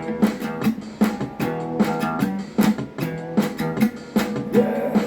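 Guitar strummed in a steady rhythm, with no singing.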